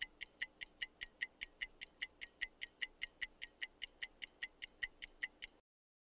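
Countdown-timer sound effect: fast, even clock-like ticks, about five a second, that stop about five and a half seconds in as the answer time runs out.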